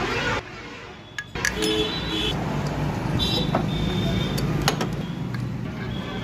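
Metal hand tools clinking and ringing against engine parts, a few sharp clicks with short high rings, over a steady low hum of workshop or traffic background.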